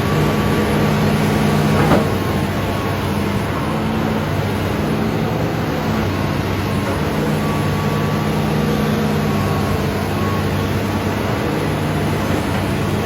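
Hitachi Zaxis 200 excavator's diesel engine running steadily, with a single sharp knock about two seconds in.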